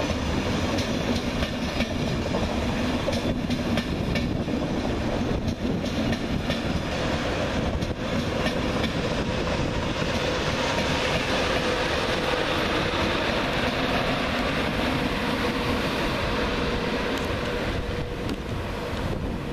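Ouigo TGV Duplex double-deck high-speed train passing close by at speed: a steady rush of wheels on rail, joined about halfway through by a steady tone, then easing off right at the end as the last power car goes by.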